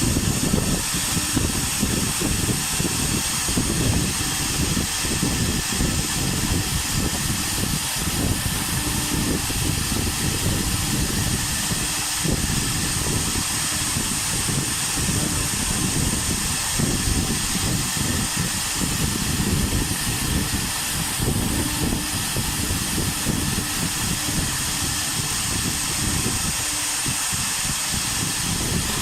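CNC router with an air-cooled spindle running while it carves MDF. There is a steady high whine and hiss over an uneven rumble, with no pauses.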